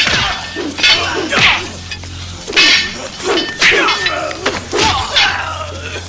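Film soundtrack music mixed with a run of sharp hits, coming roughly once a second.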